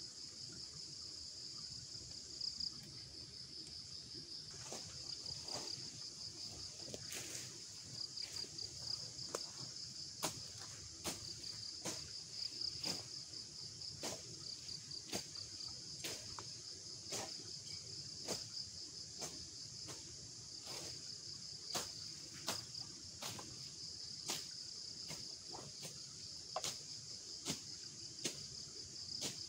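A steady, high cricket chorus, with a series of sharp knocks from about four seconds in, about one or two a second.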